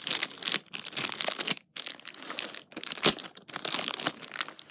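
Plastic packaging crinkling and rustling as a keyboard is worked out of it, in irregular handling bursts with a sharp crackle about three seconds in.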